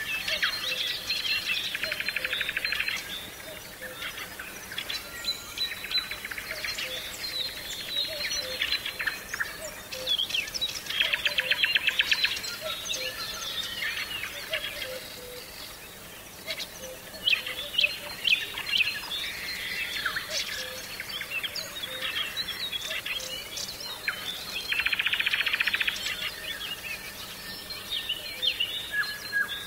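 Several wild songbirds singing together in a natural soundscape, with bursts of rapid, buzzy trills three times, each about two seconds long. A faint steady lower tone runs underneath.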